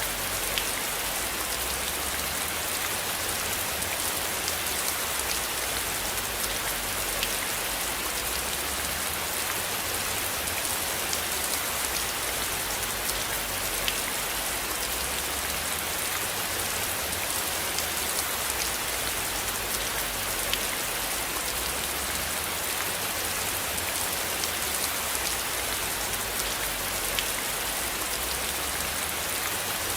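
Steady rain with many individual drops ticking through it. A low rumble underneath swells and fades slowly.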